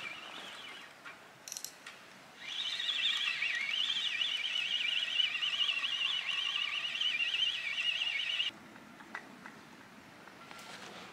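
Fishing line running off the reel as a surf cast flies out. It makes a wavering high whine that starts a couple of seconds in, lasts about six seconds, and cuts off suddenly.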